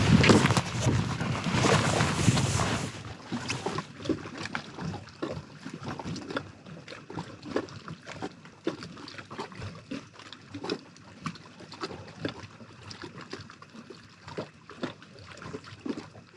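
Water splashing and sloshing for about the first three seconds, then a quieter stretch of scattered light clicks and knocks.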